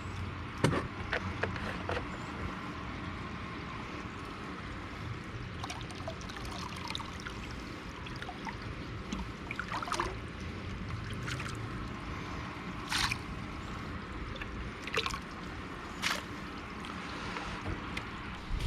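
Water trickling steadily, with a few sharp clicks and knocks scattered through it.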